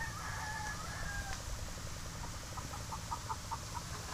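A rooster crowing for about the first second, then chickens clucking in a run of short, evenly spaced notes.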